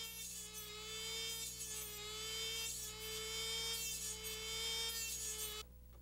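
The small electric grinding motor of a Norwood band sawmill blade sharpener running with a steady whine. It cuts off suddenly near the end.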